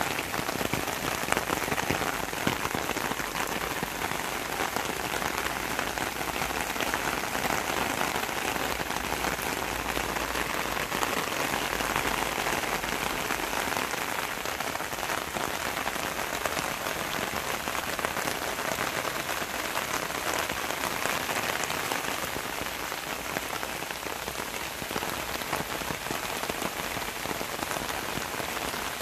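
Steady rain, droplets falling on leaves, grass and ground.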